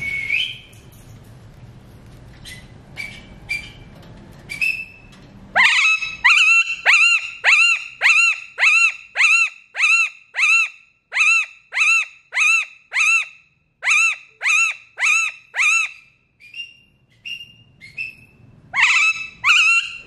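Alexandrine parakeet calling. A few short whistles come first. About six seconds in, a fast run of loud, repeated calls begins, about two a second, each sliding down in pitch, and goes on for some ten seconds. A couple more whistles and one last loud call come near the end.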